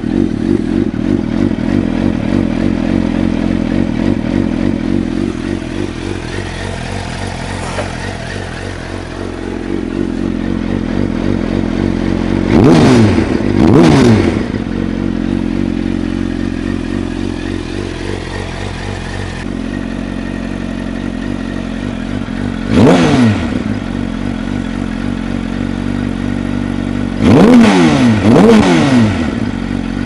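Suzuki GSX-R750 inline-four with an Akrapovic exhaust idling, blipped five times: two quick revs a little before halfway, one about three-quarters through, and two close together near the end, each rising sharply and dropping straight back to idle.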